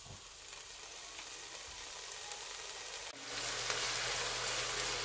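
Sliced onions sizzling in hot oil in a pot as they start to fry. The sizzle slowly builds and turns louder about three seconds in, where a low steady hum joins it.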